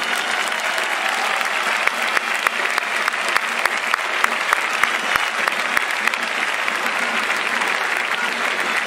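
A large crowd applauding steadily, with many individual claps standing out.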